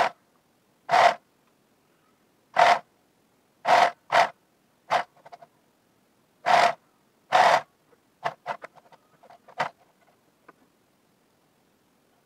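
Electric sewing machine run in short bursts of a few stitches at a time, about eight separate bursts under half a second each, as fabric with picot elastic is fed through. Faint clicks follow over the last few seconds.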